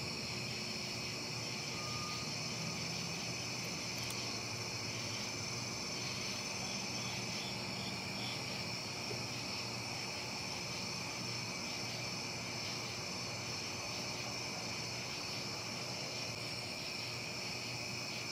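Steady chorus of night-singing insects: several high, even trills at different pitches overlapping without a break.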